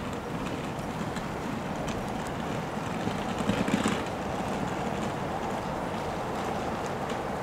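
Steady city street noise of passing traffic, with a brief louder rush about three and a half seconds in.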